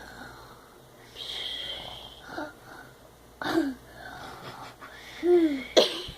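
A person fake-snoring with exaggerated, wheezy breaths: a long hissing breath about a second in, then short snore sounds with a falling pitch about halfway and again near the end, the last followed by a sharp burst of breath.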